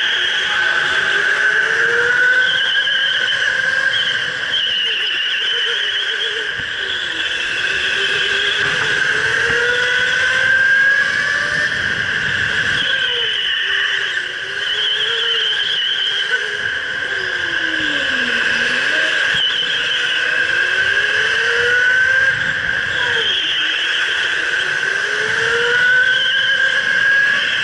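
Electric go-kart motor whining under the driver, its pitch rising and falling with speed as the kart accelerates down straights and slows for corners, with one deep dip about two-thirds of the way through.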